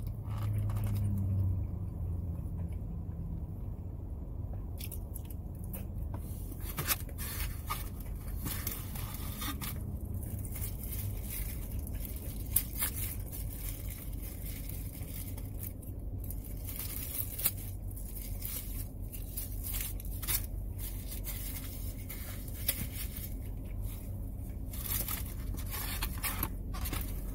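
Chewing crunchy crackers, with scattered crinkles, scrapes and clicks of plastic food packaging being handled, over a steady low hum.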